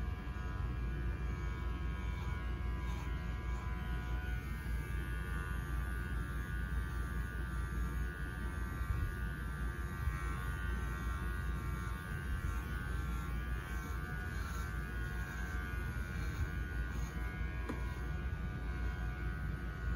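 Electric dog-grooming clippers running steadily with a constant buzzing hum.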